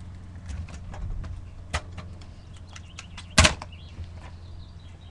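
Oxelo freestyle stunt scooter clattering on brick paving, with scattered small clicks and knocks and one loud sharp clack about three and a half seconds in, the scooter landing a one-foot trick.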